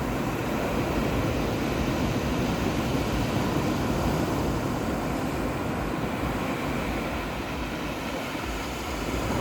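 Sea surf rushing steadily, with wind buffeting the microphone and easing a little near the end.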